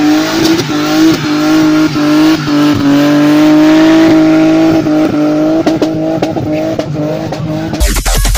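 BMW 3 Series doing a burnout: engine held at high revs with tyres squealing, a steady, slightly wavering high tone broken by short dips. Near the end it cuts abruptly to electronic dance music with a heavy bass beat.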